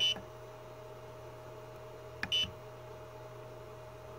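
Two short beeps from the 3D printer's LCD controller buzzer, each starting with a click, as the control knob is pressed to select menu items. A faint steady hum runs underneath.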